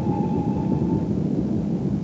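Passenger train coaches running past, wheels rumbling on the rails, with a steady ringing tone that fades out about a second in.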